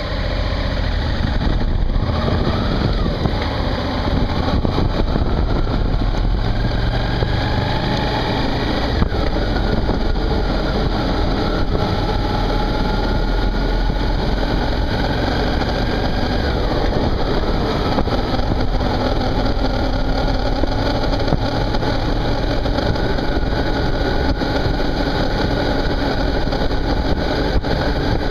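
Suzuki V-Strom 650's V-twin engine accelerating away from a stop, then running steadily at road speed, with wind and road noise under it.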